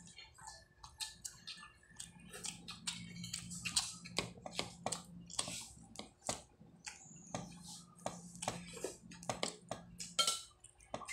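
Close-up eating sounds: chewing and mouth smacks with many irregular small clicks as bare fingers work rice and tinola on a plastic plate. A low steady hum sits underneath.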